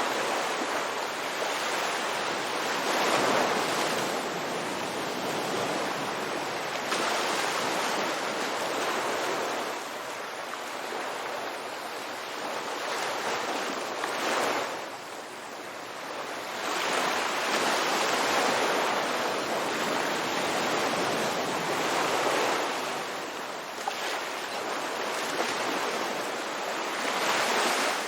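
Ocean waves breaking on a beach, the surf swelling and receding every few seconds in a steady wash.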